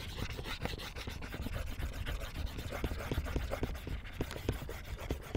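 Stylus scrubbing back and forth on a drawing tablet in quick, irregular scratchy strokes as handwritten working is erased.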